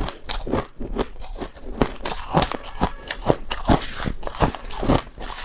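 Close, crisp crunching of powdery freezer frost, irregular sharp crunches about three a second.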